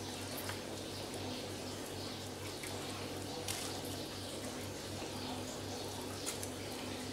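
Soft, wet squishing as bread stuffing is pushed by hand into a small raw quail, with a few faint clicks against a steady low hum.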